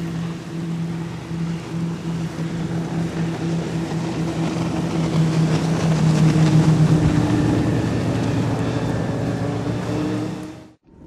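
Twin Mercury Racing EU662 SCi engines, silenced by the X-haust exhaust noise reducer, driving a Fountain 38 Lightning powerboat past at about 70 km/h with water hiss from the hull. The steady engine drone builds to its loudest about six to seven seconds in, the note drops slightly as the boat goes by, and then it fades. The sound cuts off abruptly just before the end. This is a pass-by noise test that the boat passes at 76.2 dB(A).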